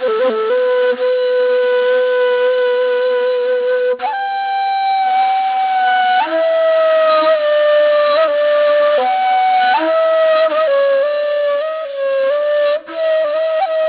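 Solo flute-like wind instrument playing a slow, breathy melody: one long held note, a step up about four seconds in, then the tune moving through shorter notes.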